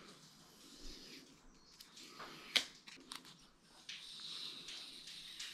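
Quiet handling of an electric scooter's handlebar, with one sharp click about two and a half seconds in and a faint hiss in the last second and a half.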